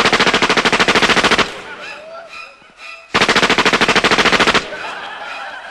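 Automatic gunfire: two bursts of rapid machine-gun fire, each about a second and a half long, about two seconds apart.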